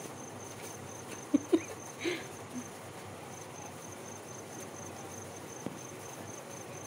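A cricket chirping in a fast, even, high-pitched pulse, about six pulses a second, with a short break in the middle. About a second and a half in there are two brief louder sounds, and a third follows half a second later.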